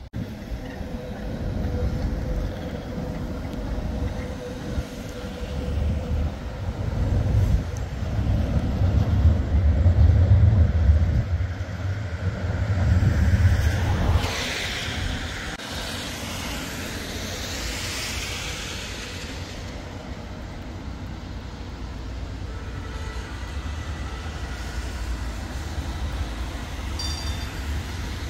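A tram running on street track: a deep rail rumble that builds to its loudest about ten seconds in, then eases off into a hissing rush and a lower steady running noise.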